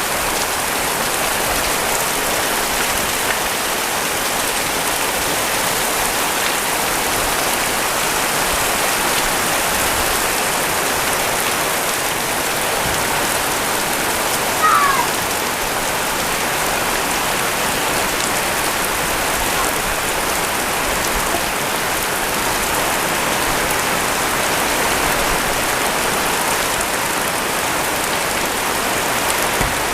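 Heavy rain falling steadily, a dense even hiss of drops on surfaces. About halfway through a brief high note falls in pitch.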